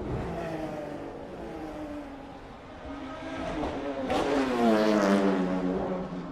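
Le Mans race car engines passing by. One car's engine note falls away at the start. Then another car approaches, louder, and passes close about four to five seconds in, its engine pitch dropping in steps as it downshifts into the corner.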